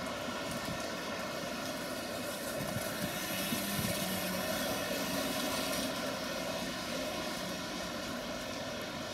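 Electric double-deck regional train running past on the tracks: a steady drone with several held humming tones, a little louder with some low rumble from about three to six seconds in.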